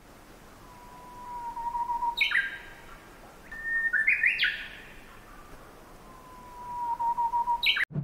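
Nightingale singing: a long whistled note that swells in loudness, followed by runs of short, quick higher notes, then another swelling whistle near the end.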